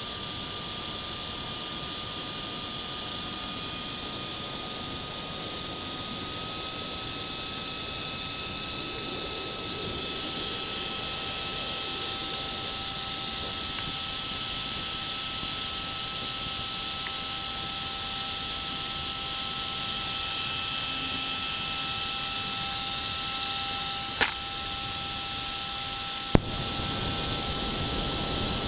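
Turnigy 1269HV RC servo giving off an unusual steady whine, two pitched tones held together, the upper one stepping slightly higher about six seconds in. Two sharp clicks come near the end.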